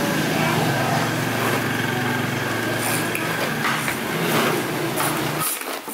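Manual pull-cord food chopper whirring as its cord is pulled, the blades spinning through the contents with a few clicks; the whirring stops abruptly near the end.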